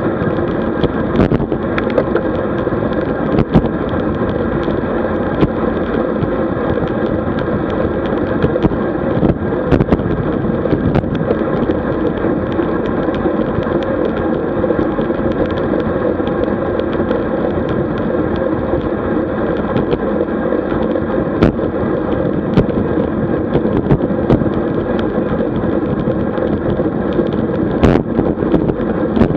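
Steady wind rush on the microphone and tyre noise from a road bicycle riding at speed, with frequent sharp ticks and rattles.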